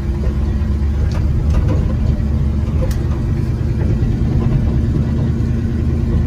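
1986 Chevrolet K20 square-body's 350 V8 running with a steady low rumble, heard from inside the cab as the truck pushes snow with the plow blade down.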